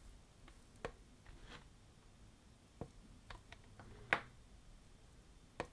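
Faint clicks of the JBL Xtreme 3's top buttons being pressed in turn and in combinations, about ten irregular presses, the loudest about three quarters of the way through. No sound comes back from the speaker, which has no power.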